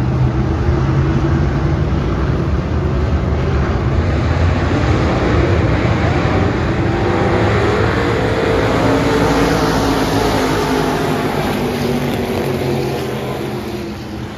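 A pack of USRA Stock Cars' V8 engines racing past at high revs, several engines overlapping with their pitches rising and falling. The sound fades near the end as the field moves away.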